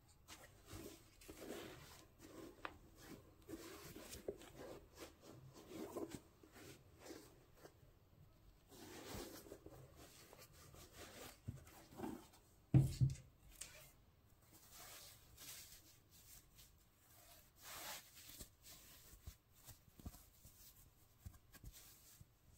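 Faint rustling and scuffing of cotton-gloved hands handling a denim Nike Dunk High 1985 sneaker, working its tongue and laces, with a soft thump about halfway through as the shoe is set down or knocked.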